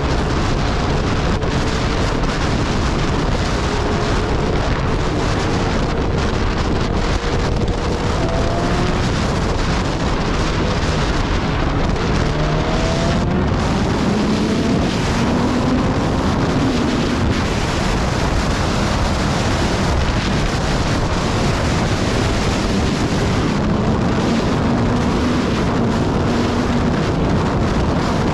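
Wind rushing over the microphone of a motorcycle riding at speed, with a faint engine note underneath that slowly rises and falls in pitch.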